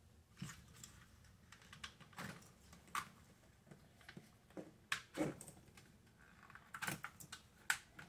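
Scattered light plastic clicks and snaps at irregular moments as a car's door master switch is pried out and its wiring connectors are unplugged.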